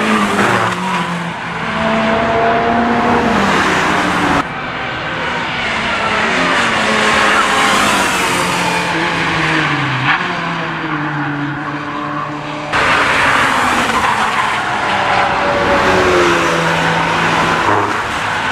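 Cars cornering hard on a race circuit, heard from trackside: engines revving up and falling away through gear changes, with tyres squealing. The sound changes abruptly twice, about four and thirteen seconds in.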